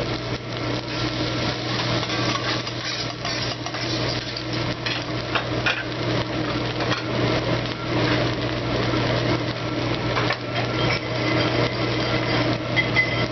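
Metal spatulas clicking and scraping on a hibachi steel griddle as the fried rice is worked, with scattered sharp clacks over a steady low hum.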